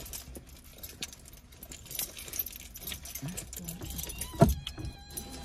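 Keys jangling and seat-belt strap clicks as a seat belt is fastened around a soft mesh pet carrier, with one sharp, loud click about four seconds in. A kitten gives a long crying meow near the end.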